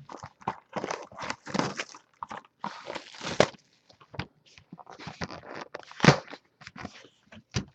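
Plastic shrink-wrap being torn off and crinkled and a cardboard card box being handled as a factory-sealed box of football cards is opened: a string of irregular crackles and rustles, the loudest about six seconds in.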